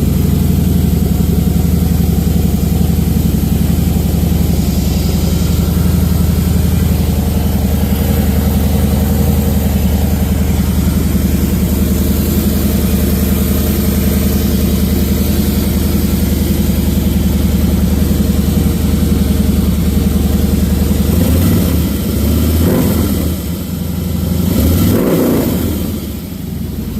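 Motorcycle engine idling steadily, then revved twice near the end before settling back to idle. It has a whine that the owner suspects comes from the primary drive, possibly a primary chain in need of adjustment.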